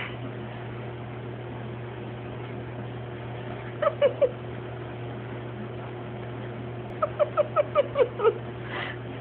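Sleeping golden retriever puppy whimpering in short, high yips while dreaming: three about four seconds in, then a quick run of about eight near the end.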